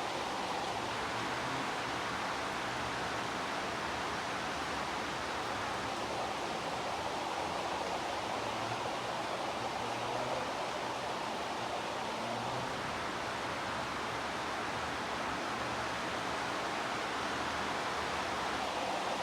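Heavy rain falling steadily, an even hiss with no separate drops or thunder standing out.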